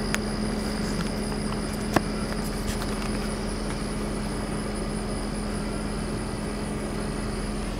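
Car running, heard from inside the cabin as a steady hum with a faint high whine, and a single click about two seconds in.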